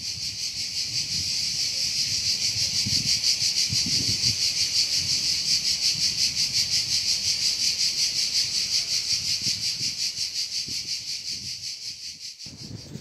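Cicadas singing in a loud, dense chorus, a high buzz that pulses rapidly and evenly, over a faint low rumble. The chorus cuts off abruptly shortly before the end.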